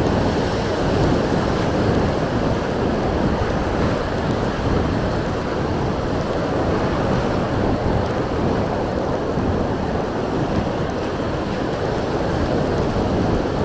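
Strong wind buffeting the microphone mixed with the surf washing in: a steady, dense rushing noise with no letup.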